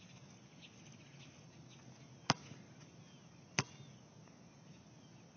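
A basketball bouncing twice on a hard outdoor court, sharp single smacks a little over a second apart.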